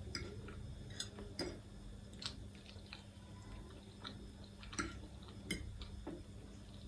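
A person eating ramen close to the microphone: chewing, with about half a dozen short sharp clicks scattered through it, over a steady low hum.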